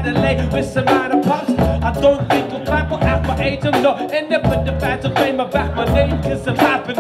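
Live hip hop/groove band playing a bass-heavy groove, with melodic lines over it.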